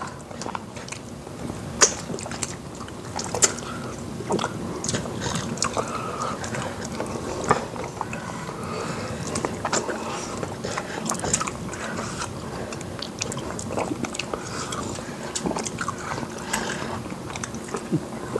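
Close-miked chewing and biting of two people eating fufu and soup with meat by hand, with many short wet clicks scattered throughout, the sharpest about two and three and a half seconds in.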